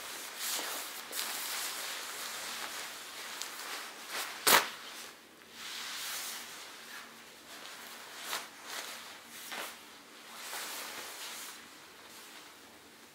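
Nylon-shelled down jacket and down pants being handled and shaken out, rustling in repeated bursts, with one sharp click about four and a half seconds in.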